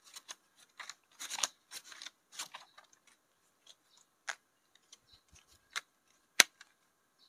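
Paper banknotes being taken out and sorted by hand: a run of short crinkles and rustles that thin out after about three seconds, with one sharp click a little after six seconds.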